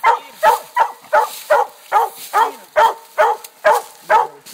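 Treeing Walker Coonhound barking at the tree in a steady, rapid run of short barks, about two to three a second: tree barking that signals raccoons treed above her.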